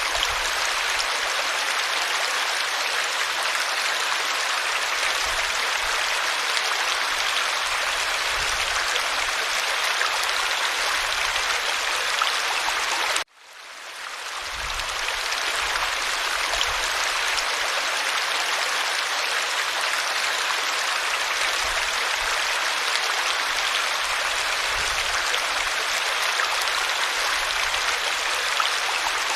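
Small stream flowing, a steady rush of water. About 13 seconds in the sound drops out abruptly and swells back up within a couple of seconds.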